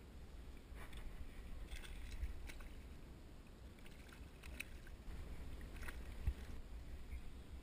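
A hooked fish splashing at the water's surface right beside a kayak, in a few short bursts, over a faint low rumble. A single low thump comes near the end.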